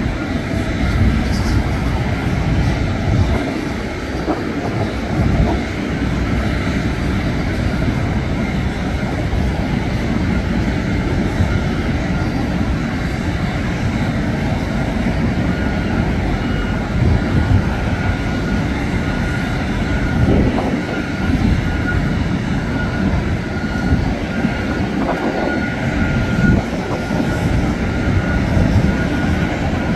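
Steady jet airliner noise: a continuous low rumble, joined about halfway in by a thin, steady high whine.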